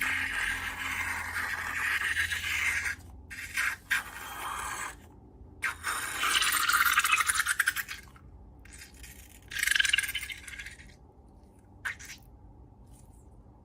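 Hands scraping and rubbing at slime-making materials, in several bursts of scraping noise. The longest and loudest burst comes a little before the middle, and the bursts die away near the end.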